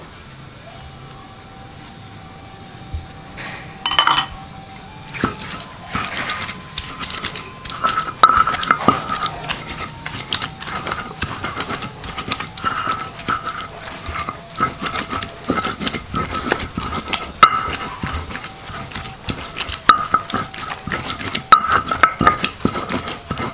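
Kitchen utensils clinking and knocking against metal dishes: a rapid, irregular series of sharp clinks with a short ring, starting about five seconds in and going on from there.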